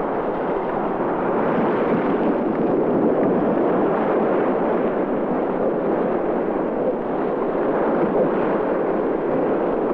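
Steady rushing noise of the sea, waves and spray, unbroken and even in level.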